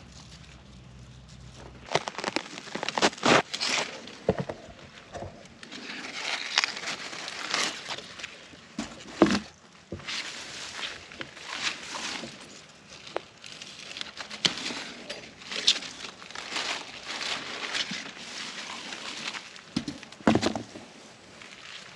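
Leafy cucumber vines rustling, with irregular sharp snaps and knocks as cucumbers are picked by hand. The sounds start about two seconds in and keep going on and off.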